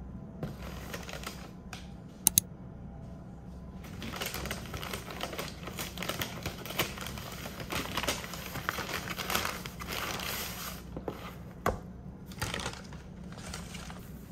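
Brown paper bag rustling and crinkling for several seconds as a hand rummages inside it, after two sharp clicks. A single knock near the end as a cardboard box is set down on the desk.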